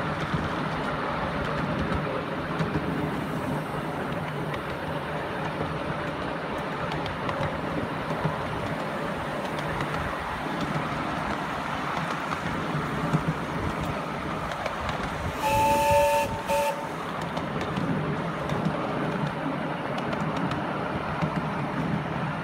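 A 7¼-inch gauge miniature train running steadily along its track behind a Britannia locomotive. About fifteen seconds in, the locomotive's whistle sounds a chord for about a second, followed by a brief second toot.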